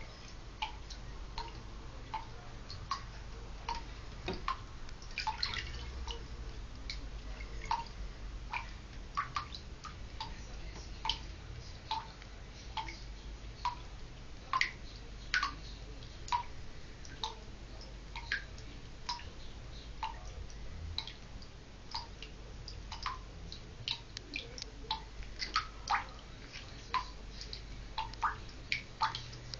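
Water drops plinking into a filled bathtub, irregularly about one to two a second, over a low steady hum.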